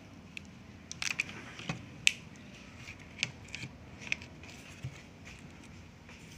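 Scattered sharp clicks and taps of hands handling a Dell Inspiron laptop's LCD panel and reseating its display cable, about a dozen small plastic-and-metal clicks over a faint room hum, the loudest about two seconds in. The cable is being reconnected as the likely cure for a loose-cable white-screen fault.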